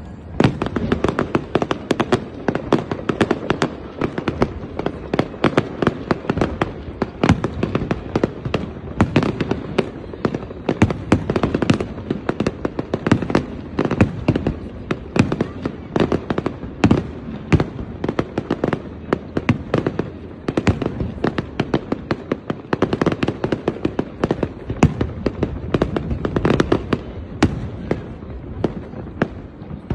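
Fireworks display: a dense, unbroken barrage of shell bursts and sharp cracks, several a second, over a low rumble.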